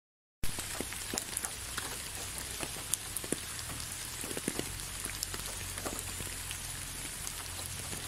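Steady rain falling on a wet road and fallen leaves, a constant hiss with many individual drops ticking close by, starting about half a second in.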